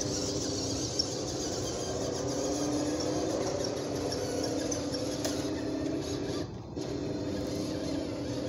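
Electric motor and gearbox of a New Bright 1:6 scale Ford F-150 RC truck whining steadily as it drives across grass. The whine cuts out briefly about two-thirds of the way in, then picks up again.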